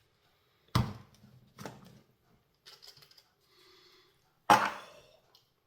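Kitchen things being handled: a loud knock about a second in, a smaller one soon after, light clatter, and another loud knock near the end.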